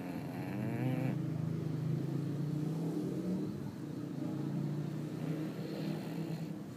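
Bulldog snoring: a steady, low, rumbling rasp on each breath, with a wavering higher note in the first second.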